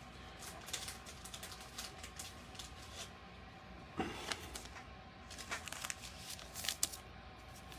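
Trading cards being handled and slid against one another, a run of light, irregular clicks and rustles, with a sharper tap about four seconds in.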